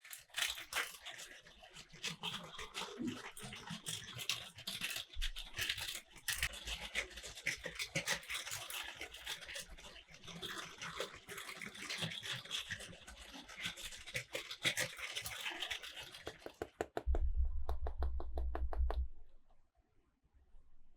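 Plastic toy train track and toy cars clattering in dense clicks and rattles. About seventeen seconds in, a small toy motor hums for two seconds with fast, even clicks that slow and stop.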